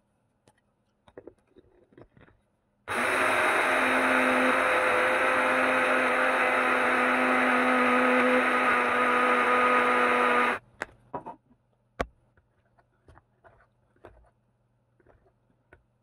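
Electric coffee grinder running steadily for about eight seconds, grinding rice and oat flakes into flour. The motor starts about three seconds in and cuts off suddenly. A few light clicks and taps follow, with one sharper click.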